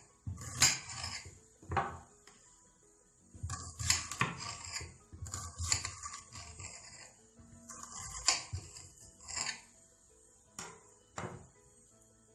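Kitchen knife chopping an onion finely on a cutting board: uneven runs of sharp knocks with scraping strokes between them, ending in a few single knocks.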